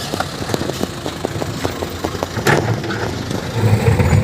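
Hydraulic excavator's diesel engine running, with scattered knocks and clanks as it works the dirt, and the engine swelling louder around two and a half seconds in and again near the end.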